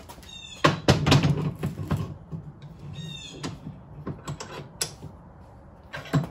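A Ford Thunderbird front steering spindle being set and clamped in a steel bench vise: metal clanks and knocks, thickest about a second in, with a single knock near the end. Twice, once near the start and once about three seconds in, there is a short run of high squeaks.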